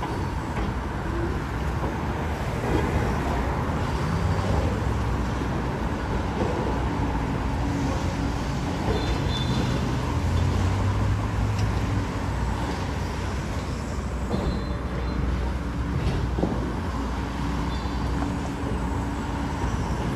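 Steady road traffic: cars and trucks passing, a continuous rumble of engines and tyres.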